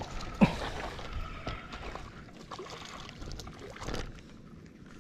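Water splashing and sloshing around a small fishing boat, with a sharp knock or splash about half a second in.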